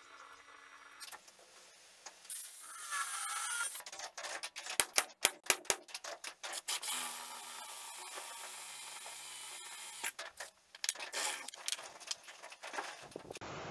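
A 20-volt cordless drill boring holes through small flat steel strips, its motor running steadily under load for a few seconds. A quick run of sharp metal clicks and clatter comes around a third of the way in, as the steel pieces are handled.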